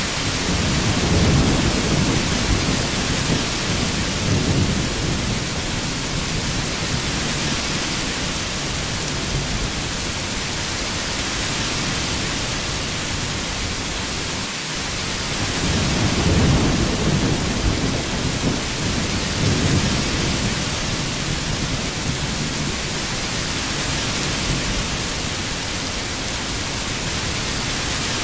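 Heavy rain falling in a steady hiss, with two slow swells of deep rumble, one near the start and one about halfway through.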